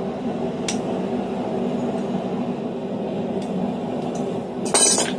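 A few light metallic clinks of blacksmith tools on a steel anvil over a steady hum. Near the end comes one loud, sharp hammer blow on a dapping punch set on the red-hot bar, deepening a depression in it.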